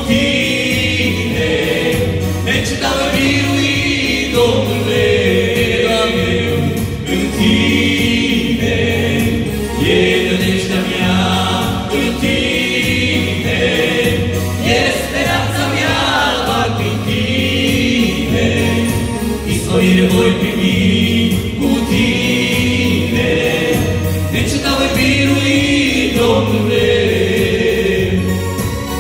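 Male vocal group singing a worship song in harmony, backed by an electronic arranger keyboard with a steady bass beat.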